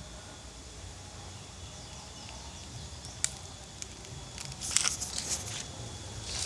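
Outdoor ambience with a faint, steady, high-pitched drone. A couple of sharp clicks come a little past the middle, then a burst of crackling rustles about a second long near the end.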